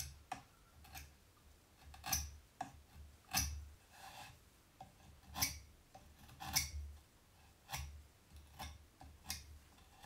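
About ten short, sharp clicks at uneven intervals from light hand work touching up the freshly glued hook-and-loop pad on a disc sander's plate.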